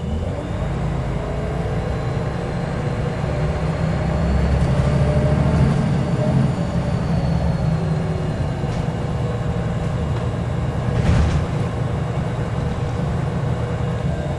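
Scania L94UB bus's diesel engine and drivetrain running, heard from inside the cabin as it drives, a steady low rumble whose note rises and falls with speed. A short knock is heard about eleven seconds in.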